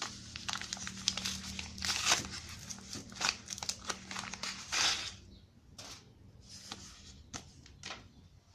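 Rustling and crinkling handling noise with scattered sharp clicks, over a faint steady low hum. The rustling thins out to a few separate clicks after about five seconds.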